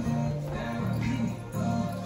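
Music playing: a song whose low melody rises and falls in short repeating phrases.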